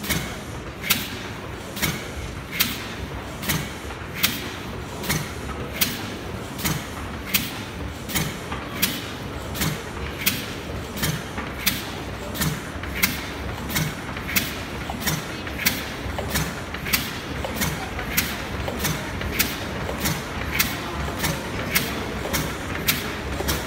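Cross-compound mill steam engine speeding up: a sharp mechanical clack repeats with each beat of the engine, quickening from about one a second to about two a second, over a steady hum of machinery in a large engine house.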